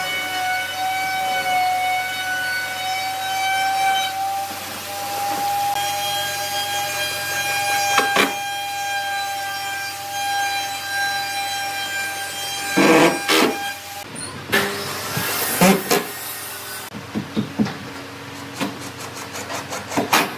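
Cordless drill motor whining at a steady pitch, stepping slightly higher a few seconds in, with sharp knocks from the work. The whine stops about fourteen seconds in, and a run of clicks and light knocks follows.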